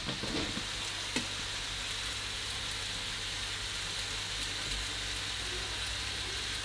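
Steady hiss with a low hum underneath, and a light click about a second in.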